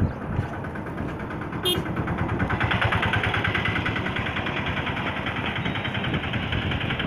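An engine running close by, with fast, even pulsing over a steady rushing noise; the engine grows louder about two and a half seconds in. A short high beep sounds just before that.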